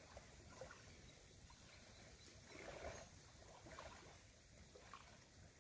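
Near silence, with a few faint, soft handling noises from hands pressing bait dough onto a cluster of fishing hooks.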